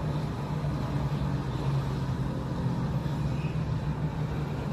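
Police helicopter running, a steady low drone with a strong low hum.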